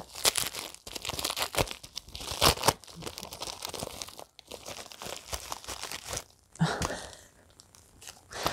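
Packaging crinkling and tearing as it is opened by hand, in irregular rustles and crackles that thin out near the end.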